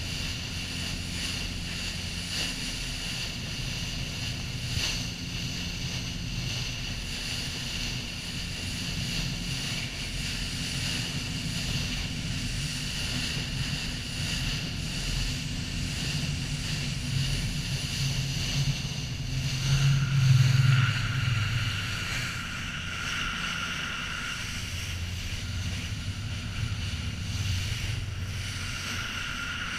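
A fishing boat's engine running steadily under way, with the bow wave rushing and spraying along the hull and wind buffeting the microphone. The engine drone swells briefly about two-thirds of the way through.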